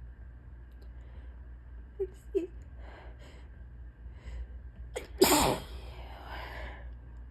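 A person's tickly allergy sneeze buildup: two short catching gasps about two seconds in, a few hitching breaths, then one loud sneeze about five seconds in that trails off over a second and a half.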